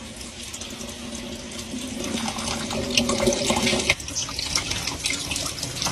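Water running steadily from a tap or shower, with short sharp splashes scattered through it, most between about two and four seconds in.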